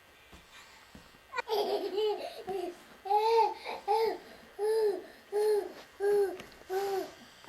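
A girl laughing in a run of high-pitched, rhythmic 'ha' pulses, about two a second, starting about a second and a half in after a near-quiet start.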